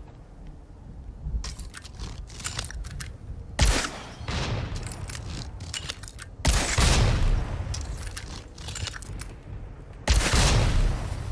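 Blast crossbow sound effect: three sharp blasts about three seconds apart, each trailing off in a low rumble, with runs of rapid clicking between the shots.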